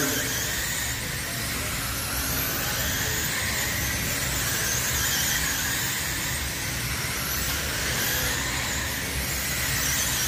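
Several electric radio-controlled midget race cars running laps together, their motors making overlapping high whines that rise and fall in pitch as the cars speed down the straights and slow for the turns.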